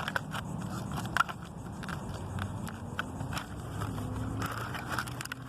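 Crinkling and sharp clicks of plastic and cardboard toy packaging being handled and pulled at, as an action figure is worked out of its box.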